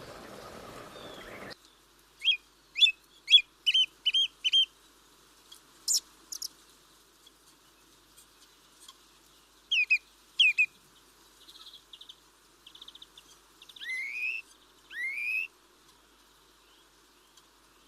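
Wild birds calling: a run of about seven quick sharp chirps, scattered single notes, a short fast buzzy trill, then two rising whistled notes. A hiss of background noise cuts off suddenly near the start.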